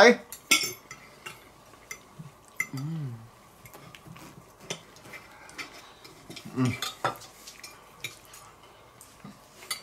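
Knives and forks clicking and scraping on plates as steak is cut and eaten, in a scattering of short, sharp clicks.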